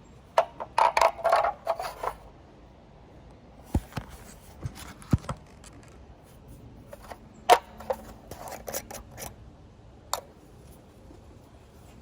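Hands handling plastic plumbing parts and primer and glue cans: a quick run of clicks and scrapes starting about half a second in, then a few separate sharp knocks spread through the rest.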